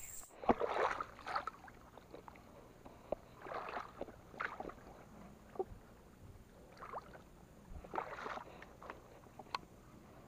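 A fishing lure worked across the surface of a pond on a baitcasting rod. Short splashy swishes and sharp clicks come at irregular intervals, roughly a second apart.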